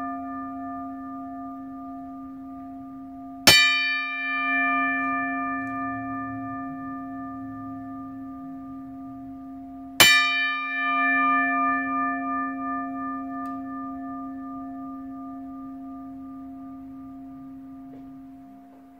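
A deep bell struck twice, about six and a half seconds apart. Each strike rings on and slowly dies away, and the ring of an earlier strike is still sounding at the start.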